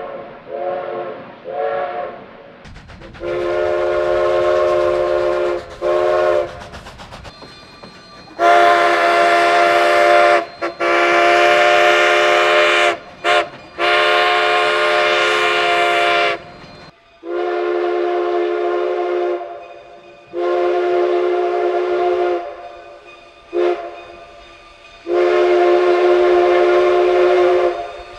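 A locomotive's multi-note chime sounds a series of long blasts of two to three seconds, with short toots between them. A low rumble runs under the first half.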